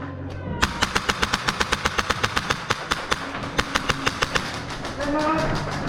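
Airsoft guns firing on full auto: a long rapid rattle of sharp cracks, about a dozen a second, with brief shouts near the start and again near the end.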